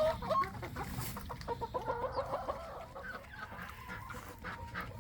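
Chickens clucking, a string of short clucks.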